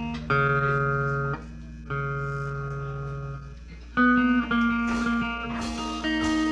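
Guitar being tuned up: single notes plucked and left to ring for a second or so, the same low note struck twice, then higher notes from about four seconds in, over a steady low hum.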